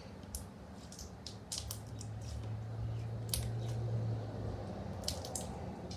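Slime being squished and handled, giving scattered small sticky clicks and pops, over a faint low hum.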